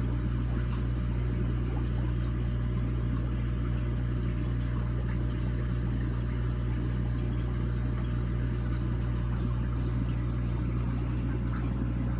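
Aquarium pump humming steadily with a faint wash of moving water.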